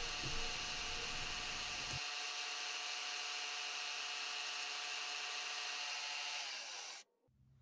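Milling machine spindle running with an end mill cutting brass, a steady hiss from the cut over a faint motor whine. It cuts off suddenly near the end.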